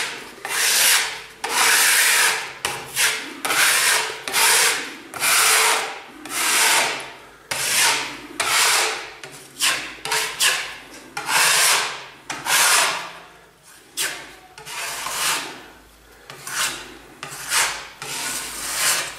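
Steel putty knife scraping fibre-reinforced filler along a plastered wall, in repeated strokes of roughly one a second, each a rasping hiss that swells and fades as the blade spreads the filler and takes off the excess.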